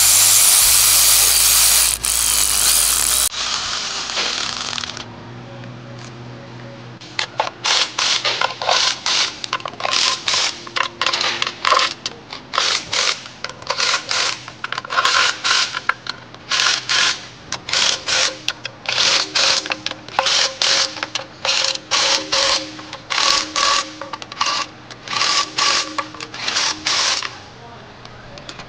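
Hand ratchet turning oil pan bolts, its pawl clicking in short bursts about once a second as the handle is swung back and forth. The first few seconds hold a louder, steady noise before the clicking starts.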